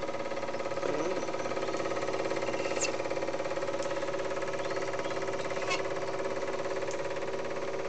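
Elmo ST-180 Super 8 film projector running: a steady mechanical whir with a fast, fine chatter from the film transport, broken by a few sharp clicks.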